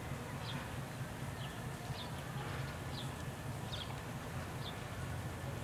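Faint outdoor ambience: a steady low rumble with short, faint bird chirps about once a second.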